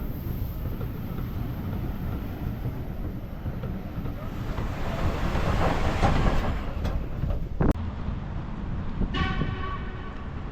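A steam locomotive runs on the line, its rumbling noise swelling about halfway through. A sharp click follows, and near the end a locomotive whistle blast begins as one steady pitched tone.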